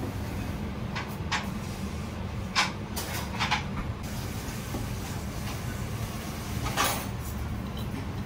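Steady low hum of kitchen ventilation under about half a dozen short knocks and clacks of plates and utensils being handled on a steel counter.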